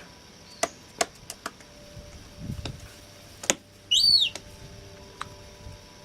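Young seagull chick giving one loud, high peep that rises and falls in pitch, about four seconds in, amid a handful of light taps and knocks.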